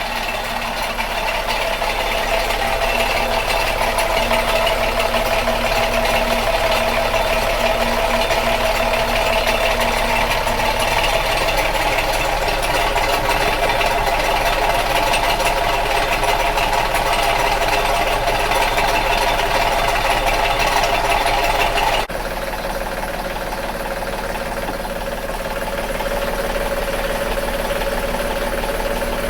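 Boat engine running with a steady metallic rattling and banging from a failing Saildrive engine coupler: the coupler's rubber damping bumpers have worn away, so its centre plate spins and bangs metal on metal. The sound drops suddenly in level near the end.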